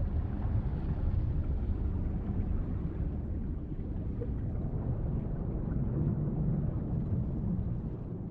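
Deep, steady rumble of ocean waves, the noise slowly losing its top end and fading toward the end.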